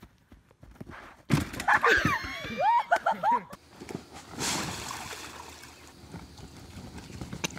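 Raised voices shouting for about two seconds, then water splashing and rushing on an inflatable pool slide, fading slowly.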